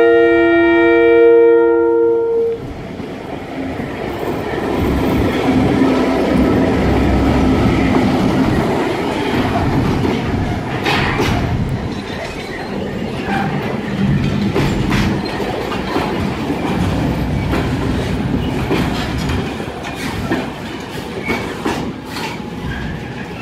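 Serbia Cargo class 661 diesel-electric locomotive sounding its two-tone horn for about two and a half seconds, the lower note stopping first. The locomotive then passes close with its engine running, followed by loaded container flat wagons rolling by, their wheels clacking over the rail joints.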